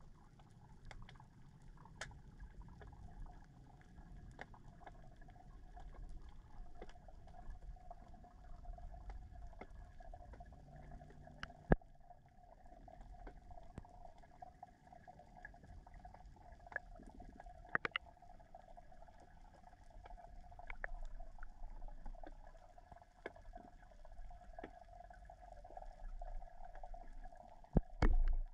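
Underwater ambience picked up by a submerged camera: a low rumble under a faint steady hum, with scattered sharp clicks throughout and one much louder click about twelve seconds in.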